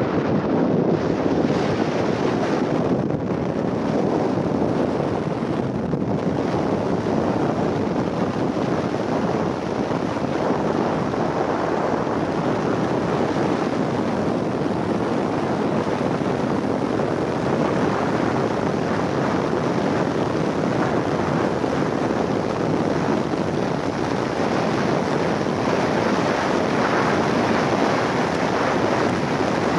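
Steady rushing road and wind noise of a car moving at highway speed, with wind blowing over the microphone.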